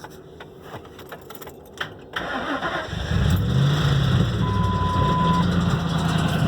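Ford 4.6-litre V8 being cranked about two seconds in, catching with a brief rev about a second later and settling into idle. A short steady beep sounds for about a second near the middle. The owner reports a loud rattle, which he says could be the timing chain, a lifter or a rod.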